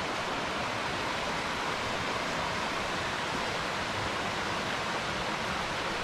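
Steady rush of a mountain stream cascading over rocks, an even unbroken wash of water noise.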